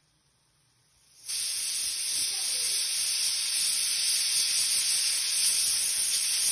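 Prestige pressure cooker venting steam through its weight valve, a steady hiss that starts suddenly about a second in, as the cooker comes up to pressure.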